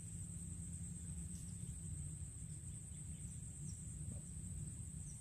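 Steady high-pitched insect chorus, a continuous buzz with no break, over a low rumble.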